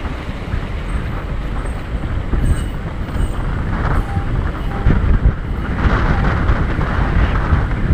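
An off-road vehicle driving slowly over a rutted dirt trail, picked up by a hood-mounted camera: a dense rumble of drivetrain and tyres on dirt, with a few jolts over the bumps. It grows louder and rougher about six seconds in.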